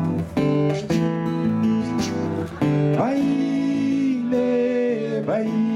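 Live music: an acoustic guitar strumming, with a voice holding long sung notes that slide up into pitch a couple of times.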